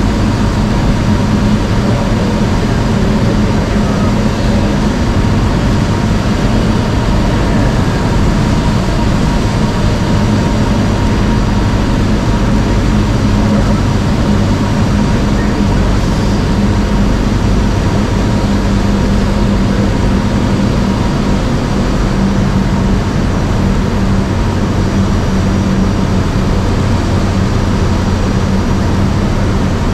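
Single-engine light aircraft's piston engine and propeller droning steadily at constant power, heard from inside the cabin.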